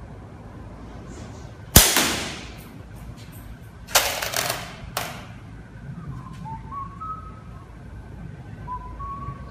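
A single slingshot shot about two seconds in: a sharp snap as the rubber bands are released and the marble strikes the target. A few seconds later comes a short burst of clattering knocks, then another single knock.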